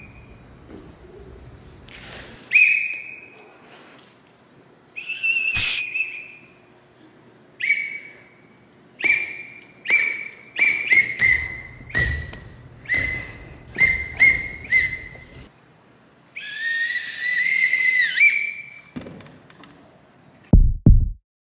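A sports whistle blown in a long series of short, shrill blasts, several in quick succession, with one long blast about three-quarters through. It is calling the time for a squat exercise. Two brief low thuds come near the end.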